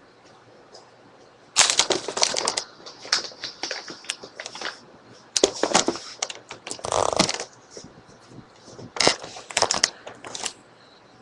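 Handling noise in three bursts of sharp clicks, clatter and crinkling, with short quiet gaps between them.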